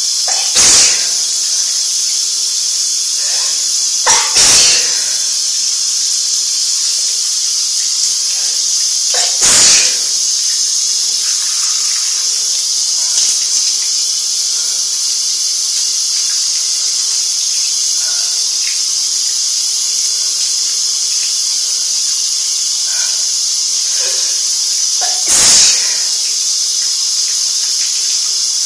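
Shower water running steadily while a person sneezes four times, spread out with long gaps between, from a head cold.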